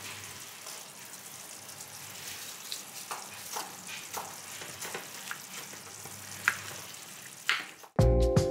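Meat sauce simmering in a pan with a steady soft sizzle, and a metal spoon clinking now and then against a glass bowl as butter is stirred into boiled carrot and potato cubes. Music comes in near the end.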